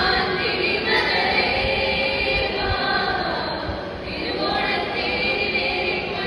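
Mixed group of young men and women singing an Onappattu, a Malayalam Onam song, together through stage microphones, with long held notes.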